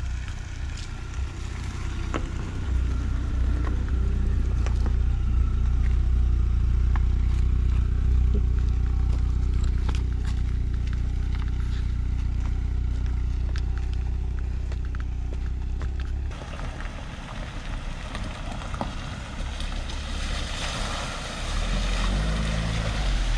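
A car driving slowly over a rutted, stony dirt track: a steady low engine rumble with stones and gravel clicking under the tyres. About two-thirds of the way through the sound changes abruptly and becomes hissier.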